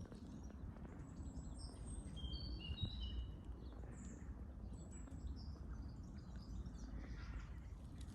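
Small woodland birds chirping, with a cluster of short, high, level-pitched notes stepping downward about two to three seconds in and scattered calls later. A steady low rumble sits beneath them.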